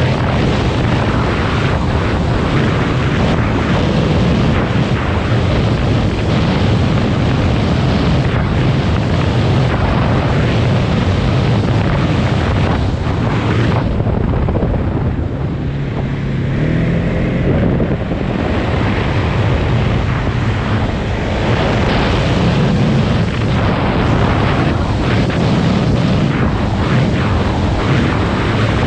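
Polaris Sportsman 570 ATV's single-cylinder engine running while riding, heavily mixed with wind noise on the microphone. About halfway through, the noise eases for a few seconds and the engine's lower, steadier note comes through, then it picks up again.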